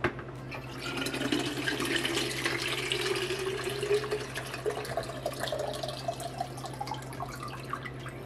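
Water poured from a filter pitcher into a large plastic water bottle, with a sharp click right at the start. The splashing carries a tone that rises steadily in pitch as the bottle fills.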